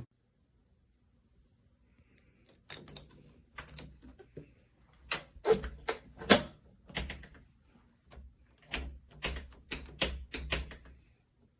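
A door and its latch clicking and knocking: irregular sharp clicks and knocks starting about three seconds in and running on in uneven clusters.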